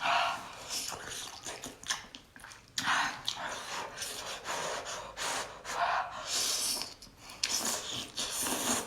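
A person puffing and breathing hard through the mouth in short, irregular bursts, as after being scalded by something hot.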